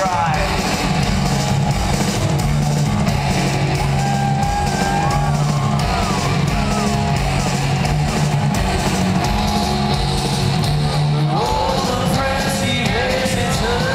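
A live rock band plays loud, with guitar, bass and singing.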